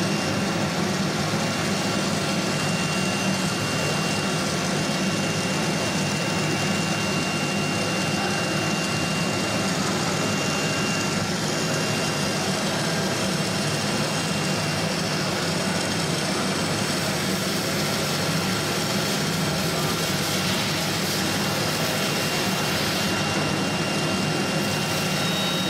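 Steady machinery running noise with a thin high whine held throughout, unchanging in level.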